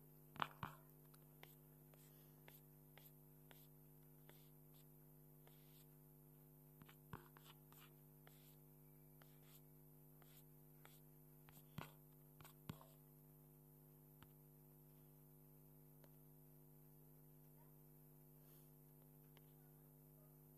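Near silence: a steady low hum with a few faint, scattered clicks.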